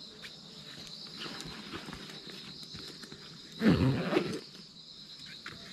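Steady high insect chirring in the background. About three and a half seconds in comes a short, louder, rough low sound lasting under a second, alongside a few faint clicks and rustles of gear being handled.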